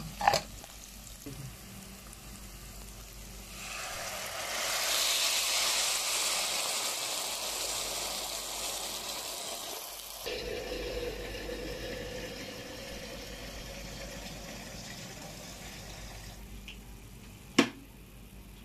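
Hot water poured into a pot of sautéed garlic and onion in oil, hissing and sizzling as it hits the hot pan from about three and a half seconds in. The pour stops around ten seconds in and the broth goes on bubbling at the boil, fading slowly, with a sharp knock near the end.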